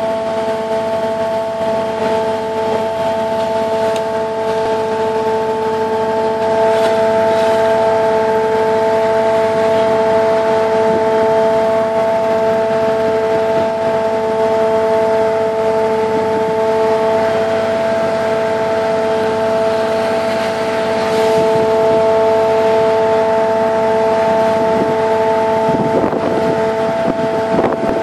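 A boat's engine running steadily, a constant drone holding several fixed pitches, over the rush of water from the wake. Wind buffets the microphone near the end.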